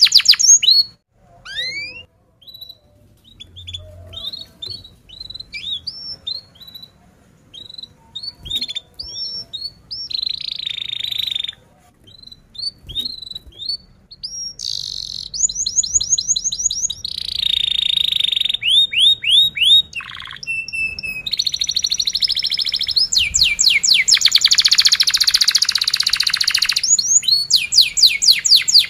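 Domestic canary singing: scattered short chirps and quick up-sweeping notes at first, then from about halfway long, fast rolling trills of rapidly repeated notes, louder than the opening.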